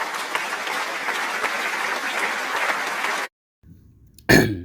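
A crowd applauding, a dense patter of clapping that cuts off abruptly about three seconds in. A single short, loud thump follows near the end.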